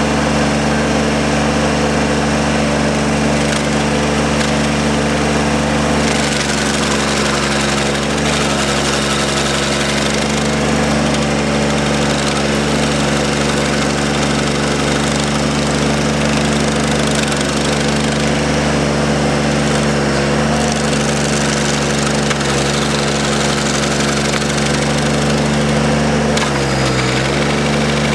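Ramrod 1150 mini skid steer's engine running hard while its stump grinder attachment chews into a tree stump, a dense hiss of grinding over a steady engine hum. The engine pitch sags briefly a few times, most deeply near the end, as the grinder wheel bites in and loads it.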